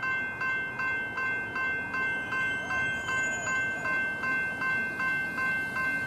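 Electronic level-crossing bells (General Signals E-Bells) ringing at a steady rate of about two and a half strikes a second, each strike a bright bell tone that fades before the next. This is the crossing's warning that a train is due.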